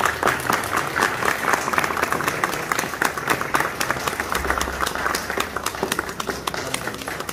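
A crowd clapping, breaking out suddenly and continuing as a dense, steady applause.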